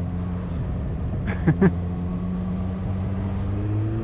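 Motorcycle engine running steadily on the move, heard from on board; about a second and a half in, two short pitched blips stand out, and near the end the engine note rises as the bike speeds up.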